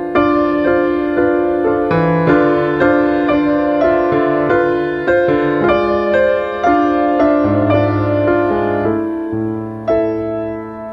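Slow solo piano music: a gentle melody of single struck notes, about two a second, each fading out, over held low bass notes.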